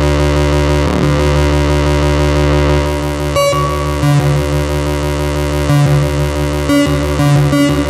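Moog analog synthesizers, a Mavis and a Werkstatt-01, playing deep ambient music: a steady low drone, joined about halfway through by short repeated notes that cut in and out.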